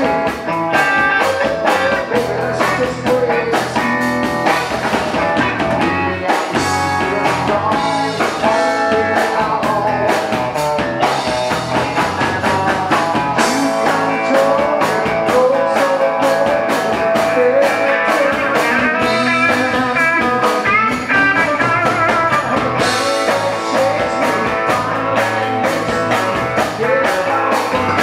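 Live rock band playing loud and steady: electric guitar, bass guitar and drums.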